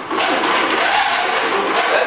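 Chevrolet V8 swapped into a Farmall tractor, running loudly through open long-tube headers with no mufflers, its engine speed wavering.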